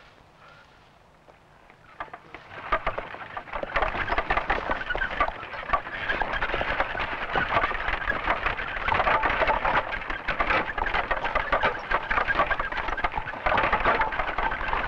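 Wooden spoked wheels of a horse-drawn cart rolling over stony ground: a dense, loud clattering crackle that starts about two seconds in and builds up, then keeps going.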